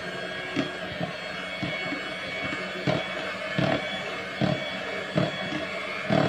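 Electric hand mixer running steadily, its beaters whisking chocolate cake batter in a bowl, with a short knock about once a second as the beaters strike the bowl.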